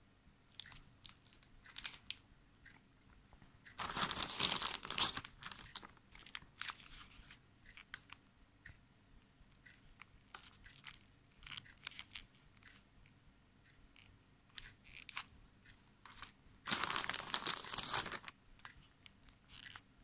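Thin clear plastic bags crinkling and rustling as they are handled, in short scattered crackles, with two longer, louder stretches of crackling about four seconds in and again near the end.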